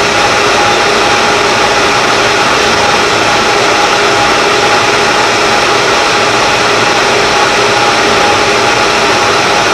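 Harrison Clausing 600 Group 21x60 centre lathe running steadily with its chuck spinning a long bar, a steady gear whine over the even machine noise.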